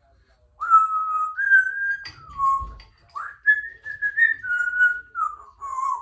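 Congo African grey parrot whistling a tune: a string of about eight clear, held notes stepping up and down in pitch, starting about half a second in.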